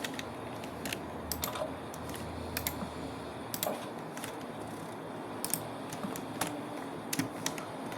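Light, irregular clicks and taps, about one or two a second, like typing or tapping on keys.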